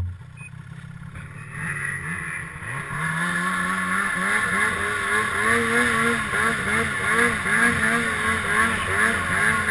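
Snowmobile engine pulling away from a stop. It gets louder about a second and a half in and climbs in pitch about three seconds in, then keeps rising and falling over and over as the sled runs along the trail.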